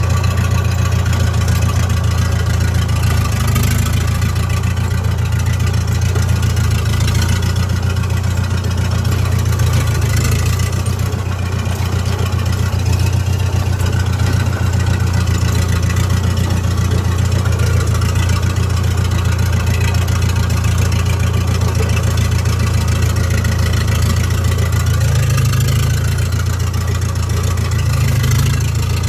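Diesel engine of an S651 crawler bulldozer running steadily, with a brief rise in engine note near the end.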